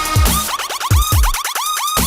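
Electronic dance music with a heavy beat: deep bass kicks that drop in pitch and quick rising synth sweeps, several a second.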